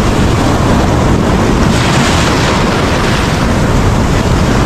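Ocean surf washing and foaming in the shallows, a steady loud rush of breaking waves, with wind noise on the microphone.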